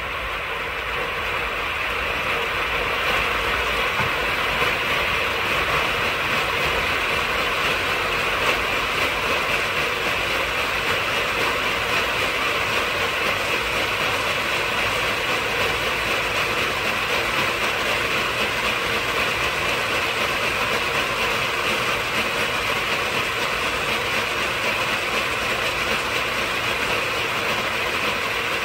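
Chase Pro dog slatmill running under a dog at a sprint: a steady clattering rattle of its plastic slats rolling on stainless steel bearings, with the paws pounding on the slats. It gets a little louder over the first couple of seconds, then holds even.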